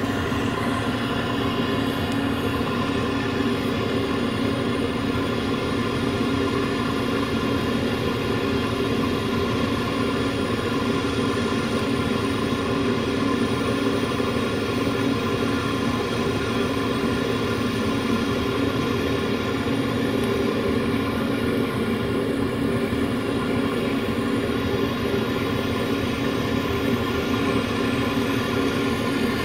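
Handheld butane torch burning with a steady, unchanging flame-jet rush and a low hum in it.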